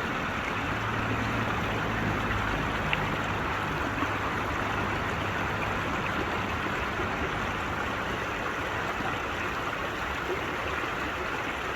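Steady rushing of flowing water, like a small stream running over rocks.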